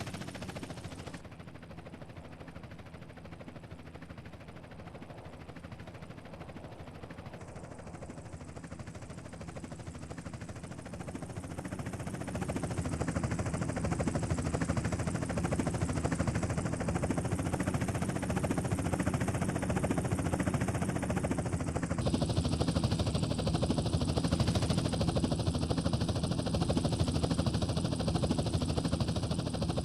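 Helicopter rotor and engine noise, a steady rapid beat that grows louder about ten to thirteen seconds in. Its tone changes abruptly a few times.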